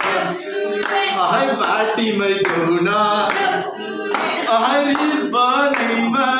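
A small group of young men singing together while clapping their hands in a steady beat.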